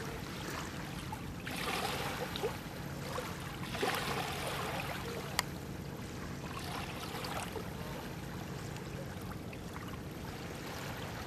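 River water splashing and lapping around a small boat, coming in a few louder swells, over a faint steady low hum. One sharp click about five seconds in.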